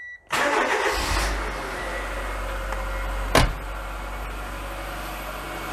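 Cold car engine, freshly filled with 15W40 oil and a new filter, starting up and settling into a steady idle. A single sharp knock about three and a half seconds in.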